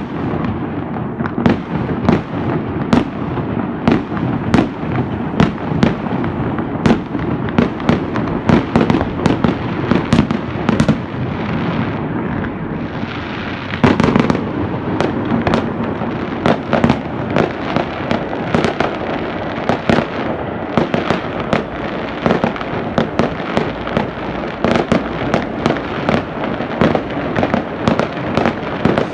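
A dense barrage of fireworks and firecrackers: sharp bangs several times a second over a steady din of explosions, with one especially loud bang about halfway through.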